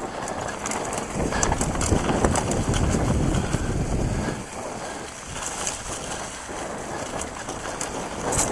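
Mountain bike riding fast down a dirt singletrack covered in dry leaves: tyres crunching through the leaf litter and the bike clattering over bumps, with wind buffeting the microphone. Loudest between about one and four seconds in.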